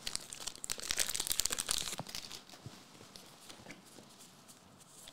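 Foil wrapper of a One Piece Card Game booster pack crinkling as it is torn open, dense and crackly for about two seconds. After that come quieter scattered clicks of the cards being slid out and handled.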